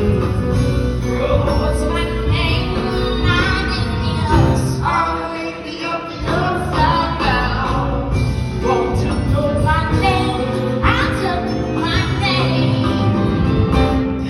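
Live musical-theatre performance: the stage band playing, with singing over it.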